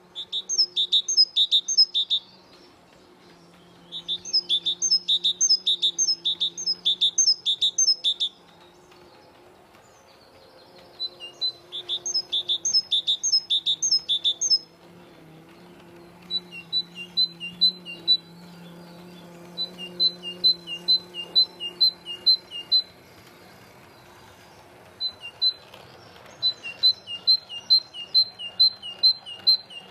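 A small songbird chirping in bouts of rapid, high chirps, about three a second, each bout lasting a few seconds with short pauses between; a faint low steady hum runs underneath.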